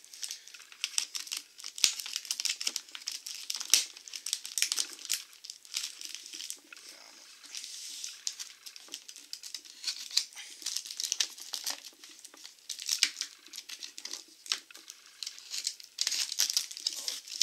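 Clear plastic wrap and tape on a cardboard parcel crinkling and crackling as it is slit with a utility knife and handled by hand. The crackles come fast and irregular, with a louder run near the end.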